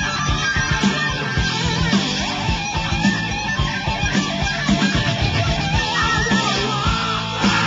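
Rock music led by strummed electric guitar over a steady beat.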